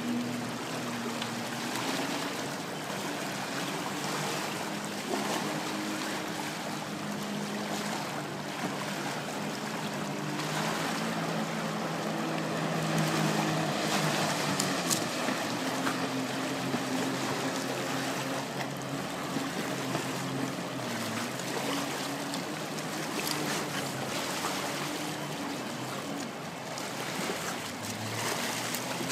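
Jet ski engines running out on the river, their drone shifting up and down in pitch. Under them is a steady wash of choppy water.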